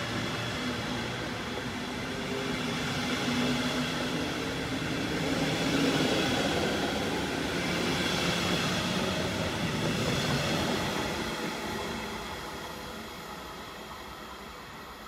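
Electric-locomotive-hauled double-deck regional train passing: a steady rumble of wheels on rails, loudest in the middle, fading away over the last few seconds as the train recedes.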